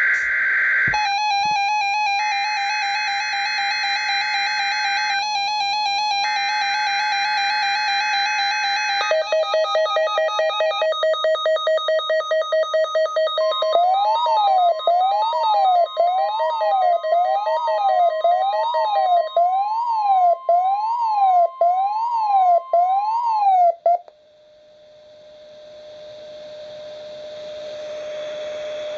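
NOAA Weather Radio weekly alert test on weather-alert receivers. First come screechy bursts of the SAME digital data header under a wavering alert tone. Then a rapid beeping starts, and from about halfway a siren-like tone sweeps up and down beside the steady 1050 Hz warning alarm tone. All of it cuts off together about four-fifths of the way in, leaving a steady low tone and a growing hiss.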